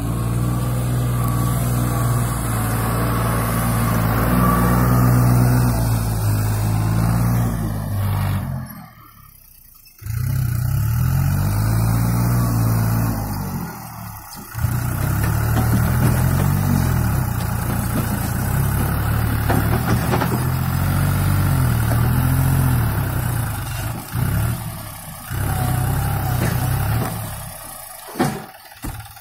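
New Holland TT4.55 tractor's diesel engine running under load as it pushes a log, its pitch rising and falling with the throttle. The sound drops away for a moment a few times.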